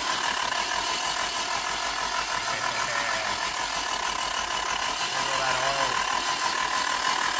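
Nissan SR20 four-cylinder engine turning over with its rocker cover off, a steady mechanical run with a steady high whine. Oil pressure is up and oil is reaching the camshafts; the valvetrain has been noisy, which the owner puts down to rocker arm stoppers.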